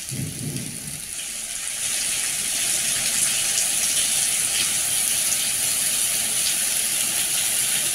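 Steady hiss of heavy rain and of vehicle tyres spraying through flooded, waterlogged streets. It grows louder about two seconds in.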